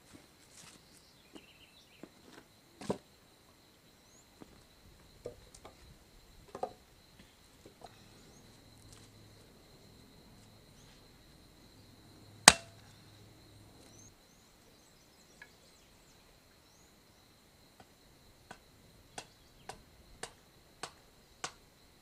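Scattered light knocks and clicks, with one sharp, loud knock about twelve seconds in and a quick run of clicks near the end, over a steady high-pitched whine.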